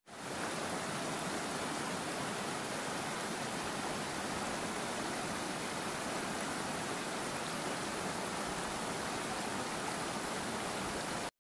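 Steady rushing of a shallow river flowing over a rocky bed. It fades in quickly at the start and cuts off abruptly at the end.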